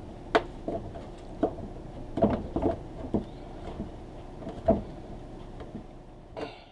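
Scattered clicks and knocks as a new brass washer valve is turned by hand onto its threaded fitting in a plastic laundry outlet box, over a steady low hum. The sound cuts off near the end.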